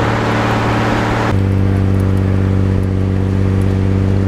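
Heavy diesel wrecker engine running steadily under a heavy tow load, heard right beside its exhaust stack. About a second in, the rushing noise above the engine falls away and the engine note drops slightly, settling into a steady drone.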